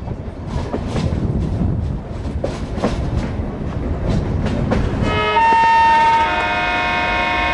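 Running train's rumble with clicks of wheels over rail joints, then, about five seconds in, a diesel locomotive horn starts a long multi-tone blast, loudest for about a second and then held more quietly.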